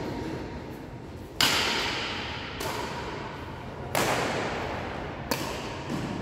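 Badminton racket strings striking a shuttlecock during a rally, sharp hits that echo in a large hall: two loud ones about a second and a half and four seconds in, then lighter knocks near the end.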